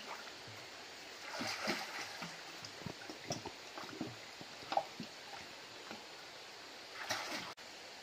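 Faint, scattered water splashes and sloshing from a person swimming in a river pool, with a few louder splashes about one and a half seconds in and near the end.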